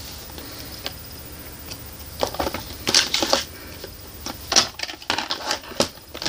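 A plastic VHS clamshell case being handled: scattered clicks and rubbing over a steady hiss, in two clusters about two seconds in and again near the end.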